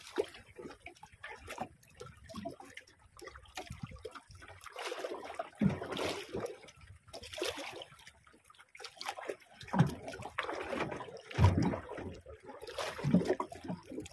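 Sea water lapping and splashing against the hull of a small boat, in irregular splashes with a few heavier slaps, the loudest about eleven seconds in.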